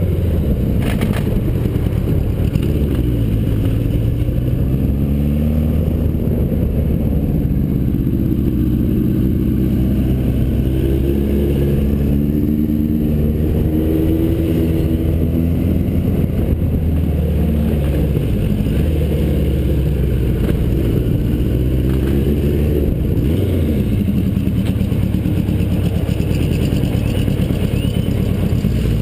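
Suzuki GS850's air-cooled inline-four engine running under way, heard from the rider's seat. The revs rise and fall in pitch several times as the bike accelerates and slows.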